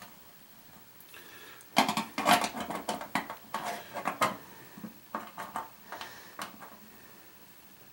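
Clicks, knocks and clatter of parts and a nut driver being handled against the metal housing of a Crock-Pot slow cooker's upturned base, in several short bursts between about two and six and a half seconds in.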